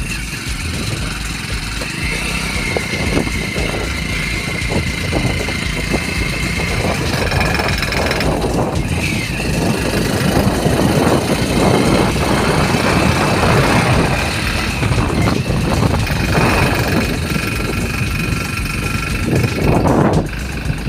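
A motor vehicle running along the road, with a steady engine and road-noise rumble and a faint high whine that comes and goes.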